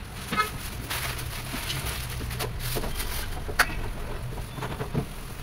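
Cloth rubbing and wiping over a stainless-steel range hood, with scattered knocks and scrapes against the metal, the sharpest about three and a half seconds in.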